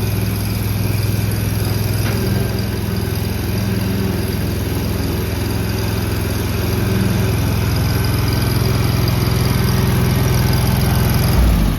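Honda GX690 V-twin engine on a skid-mounted concrete mixer running steadily at a constant speed. It cuts off near the end.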